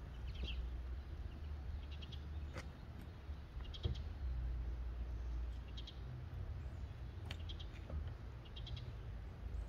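A small bird chirping in quick clusters of short high notes every couple of seconds, over a steady low rumble. A few sharp clicks and knocks break in, about two and a half, four and seven seconds in.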